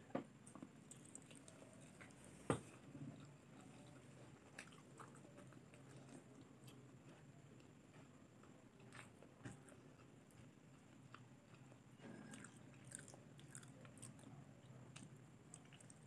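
Faint close-up eating: a person biting into and chewing braised chicken adobo pieces, with scattered small mouth clicks and one sharper click about two and a half seconds in.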